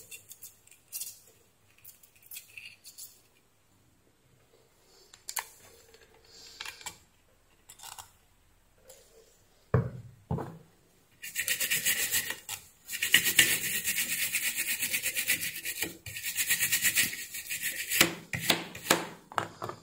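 A stiff brush scrubbed rapidly back and forth over a circuit board, cleaning flux residue off the pads where an IC has just been desoldered. It starts a little past the middle, after faint small scrapes and clicks of soldering work and a couple of soft knocks.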